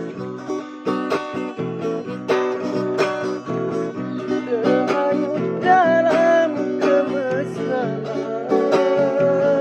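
Guitar-accompanied song: plucked string chords played in a steady rhythm, and about halfway in a voice comes in singing long held notes over them.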